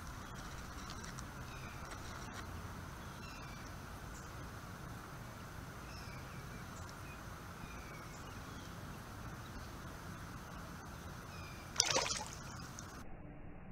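A sharp surface splash about twelve seconds in as a young largemouth bass strikes at minnows in shallow pond water. Before it, only a faint steady outdoor background with scattered small high chirps.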